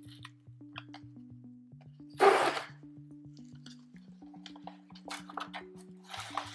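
Cardboard tear strip of an Amazon Fire HD 10 box being ripped open by hand, with one loud tear about two seconds in and shorter tearing sounds near the end. Background music with a steady beat plays throughout.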